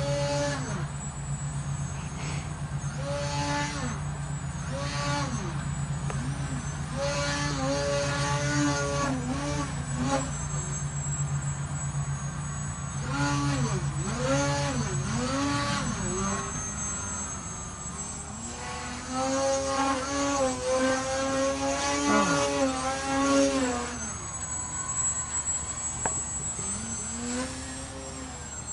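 Electric RC plane's brushless outrunner (Scorpion SII-2208-1100KV) spinning a 9x4.7 propeller, a buzzing whine that rises and falls in pitch again and again as the throttle changes and the plane sweeps past.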